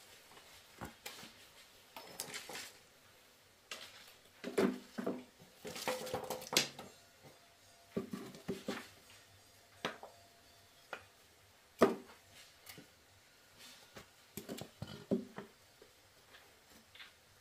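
Irregular knocks and clatters of objects being handled and set down, one with a short ring about six seconds in and the sharpest about twelve seconds in.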